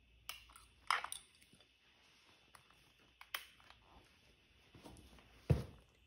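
Scattered faint clicks and taps of switches being worked on a brake-light wiring test board, with a sharper, deeper knock near the end.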